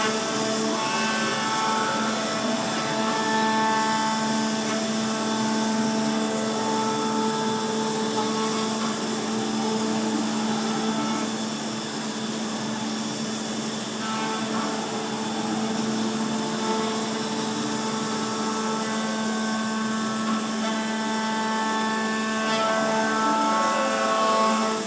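METROM P1000 pentapod machining centre milling: the spindle and cutter run with a steady whine made of several tones, some of which come and go as the cut changes, over a noisy cutting sound.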